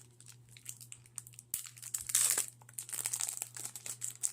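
Crinkling of a foil Pokémon card booster pack wrapper as it is handled and torn open, as a run of short crackles with a louder, denser crinkle about two seconds in.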